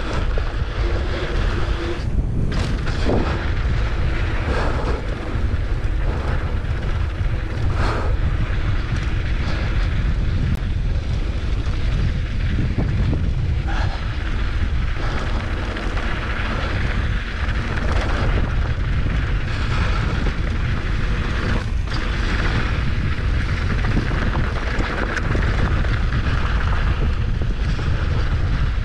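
Wind buffeting a camera microphone on a fast mountain-bike descent, a steady low rumble, with the tyres running over a beat-up, rocky dirt trail and frequent short knocks and rattles from the bumps.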